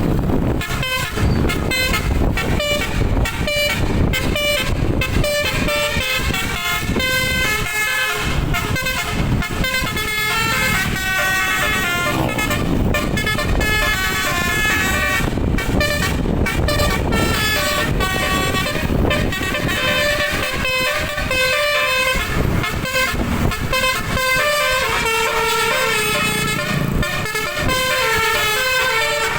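Indonesian 'telolet' multi-trumpet bus air horn playing a fast melody of quickly changing notes, loud and continuous, over a low rumble.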